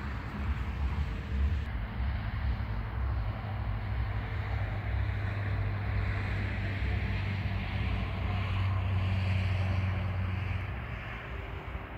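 An engine running steadily with a low hum, mixed with wind noise; it fades somewhat near the end.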